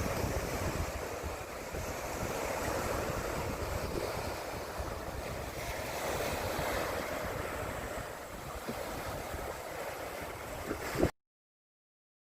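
Ocean surf washing in with wind buffeting the microphone. The sound cuts off abruptly to silence near the end.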